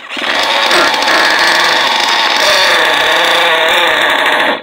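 Nitro engine of a Team Associated MGT 8.0 RC monster truck on a cold start, buzzing loudly and steadily for about four and a half seconds, then cutting out suddenly: it does not stay running.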